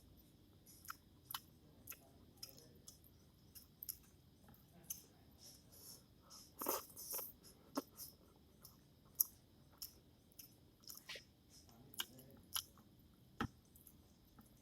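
A person eating Maggi instant noodles close to the microphone: chewing, with irregular short wet clicks and smacks of the mouth, a few a second.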